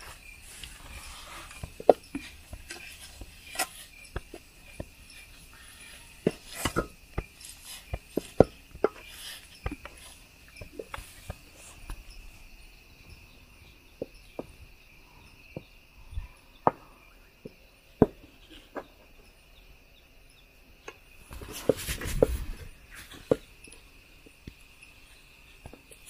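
Wooden cooking stick stirring and pressing stiff ugali in a metal pan, with irregular knocks and scrapes of the stick against the pan, and a louder scraping stretch of a second or two about 21 seconds in. A steady high trill of crickets runs underneath.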